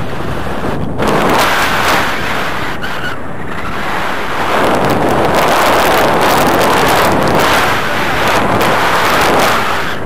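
Wind rushing loudly over a camera microphone in the airflow of a tandem paraglider lifting off and climbing on a tow. It surges about a second in, eases briefly, then swells again for most of the rest.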